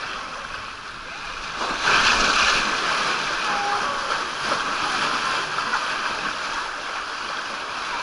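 Water rushing down an open water-slide channel around a rider's inner tube, a steady splashing hiss that swells sharply about two seconds in and stays loud.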